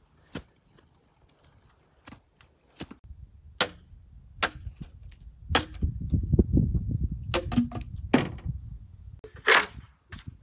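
Machete chopping wood: about seven sharp, cracking strikes at uneven intervals, starting about three seconds in, over a low rumbling noise, after a few faint taps at the start.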